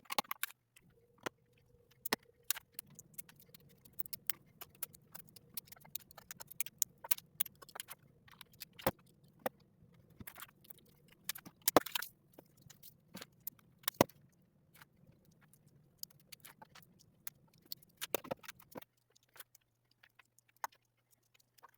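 LEGO bricks being handled and snapped together: scattered small clicks and plastic taps at an irregular pace, over a faint low hum that stops about three seconds before the end.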